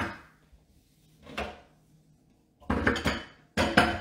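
Kitchen bowls clattering and clinking as they are handled and set down: a single knock about a second and a half in, then two quick runs of knocks and clinks in the second half.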